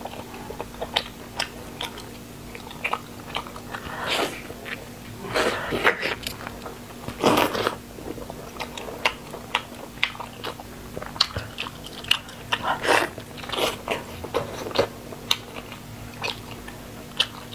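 Close-miked biting and chewing of a braised pig ear, with many short sharp crunches and wet mouth sounds, a few louder bites standing out.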